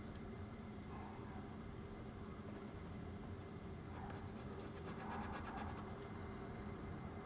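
Ballpoint pen scratching on paper in quick repeated short strokes through the middle few seconds, over a faint steady low hum.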